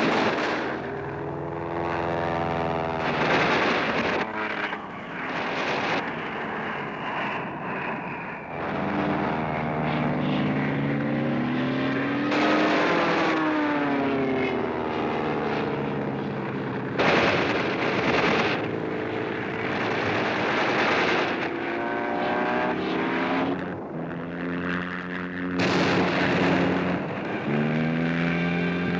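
Cartoon dogfight sound effects: a propeller plane's engine droning and sweeping up and down in pitch as it dives and climbs, broken about five times by bursts of machine-gun fire.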